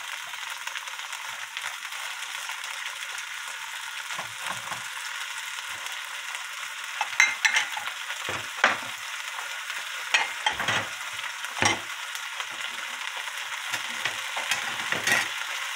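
Soybean sprouts sizzling in an oiled frying pan, a steady hiss, with a few sharp clicks and knocks from about halfway through.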